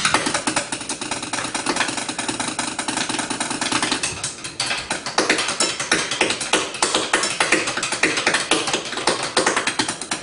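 Chopsticks drumming on kitchen pots and pans in a fast, dense run of strikes, like a rapid roll, with the pattern changing about four seconds in.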